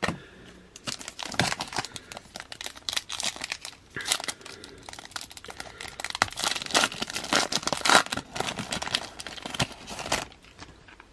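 A foil trading card pack wrapper being torn open and crinkled by hand, with a dense, irregular crackling that stops shortly before the end.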